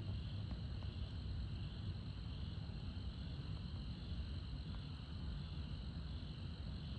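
Chorus of night insects such as crickets: a steady, high, evenly pulsing trill, over a low steady rumble.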